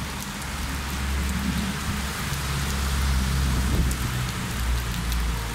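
Heavy rain falling on pavement with a steady hiss, while a truck and cars drive along the waterlogged road with a low engine rumble that swells for a few seconds mid-way.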